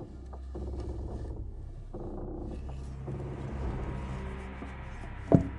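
Dark background music over a steady low drone, and near the end a single loud, heavy thud as the foot of the wooden cross drops into its hole in the ground.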